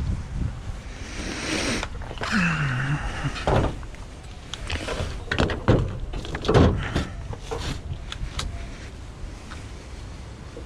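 A series of knocks and clunks, loudest around the middle, with a short low sliding sound about two seconds in.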